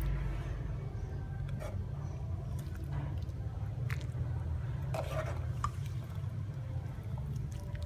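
A metal spoon stirring and scooping through a porcelain bowl of broth, liquid moving with a few short clinks of spoon against bowl, over a steady low hum.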